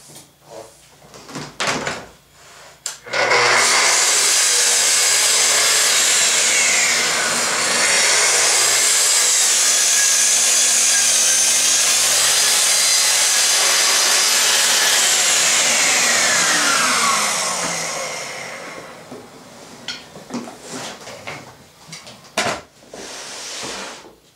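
Festool TS55 plunge track saw starting up and cutting along its guide rail through a sheet of 6 mm Baltic birch plywood, running for about fourteen seconds and then winding down with falling pitch. Before the cut there are a few clicks and knocks of handling, and after it a few knocks and clatter.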